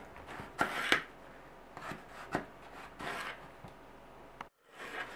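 A few short rubbing and knocking sounds from sliced eggplants being handled in a plastic tub, the strongest about a second in, with a brief break to silence near the end.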